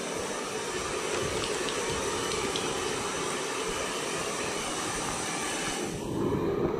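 Handheld hair dryer blowing steadily as it dries a wet dog's coat; near the end its hiss turns duller.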